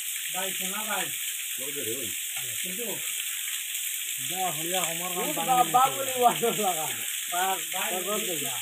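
Small waterfall pouring onto rock, a steady hiss of falling water, with several people talking over it, most busily in the middle stretch.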